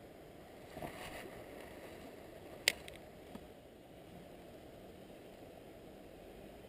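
Quiet handling of a spinning rod and reel on a cast and retrieve: a soft swish about a second in, then a single sharp click near the middle, over a faint steady hiss.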